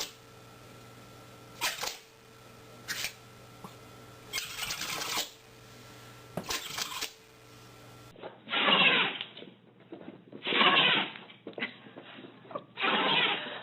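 Pet animals sneezing: a few short, faint sneezes, then about eight seconds in three louder sneezes about two seconds apart.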